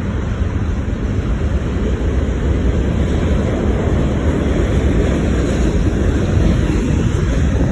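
CSX freight train passing: a steady, loud rumble that grows slightly louder, with wind buffeting the microphone.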